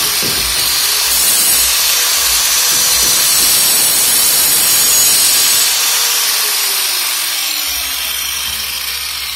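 Electric angle grinder with an abrasive disc running and grinding on the end of a PVC water pipe, a steady hissing grind. About six seconds in it is switched off and its whine falls steadily in pitch as the disc spins down.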